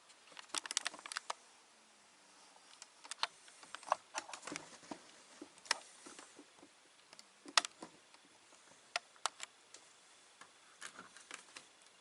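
Handling noises: irregular sharp clicks and light knocks, several small clusters of them with quiet gaps between.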